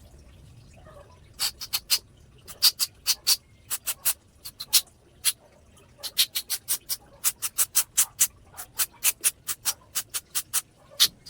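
A quick series of short, sharp spray bursts, about two to four a second, starting about a second and a half in, with a brief pause around five seconds in.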